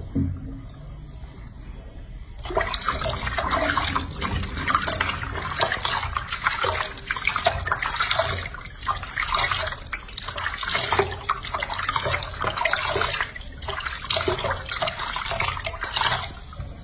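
Water splashing and pouring in a sink as hands scoop it over a baby monkey being bathed. The splashing starts about two and a half seconds in, goes on in irregular surges, and stops just before the end.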